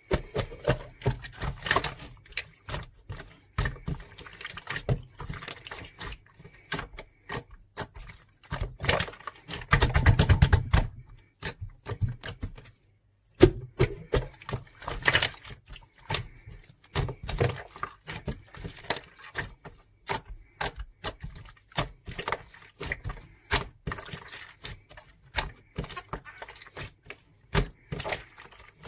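Irregular, rapid clicks and taps of small objects being handled, with some rustling; a denser, heavier run of taps about ten seconds in.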